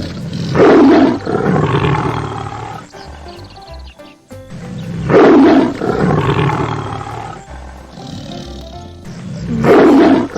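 Tiger roaring three times, about four and a half seconds apart, over background music.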